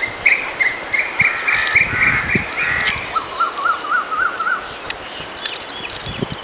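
Birds calling: a run of quick, high chirps, then a lower series of rapid rising-and-falling notes for about a second and a half.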